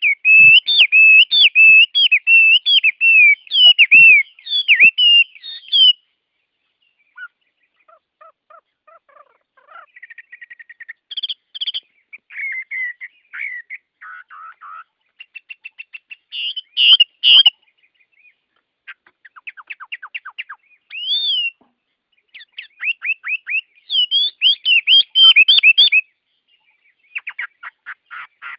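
Songbirds singing in turn: loud phrases of quick, rapid chirping notes at the start, about halfway through and again near the end, with softer calls and short trills between.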